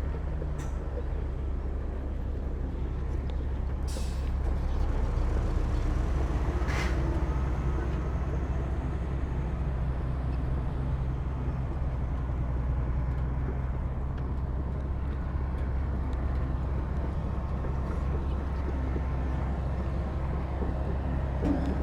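Heavy earthmoving machinery's diesel engine running steadily, with a deep drone. A few brief sharp noises cut in about four and seven seconds in.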